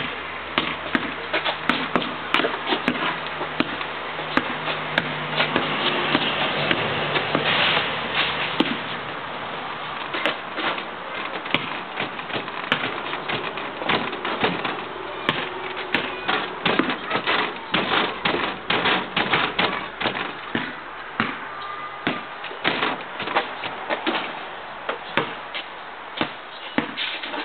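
Basketball bouncing on an asphalt court: a series of sharp thuds, coming in quick runs of dribbles, louder and more frequent in the second half.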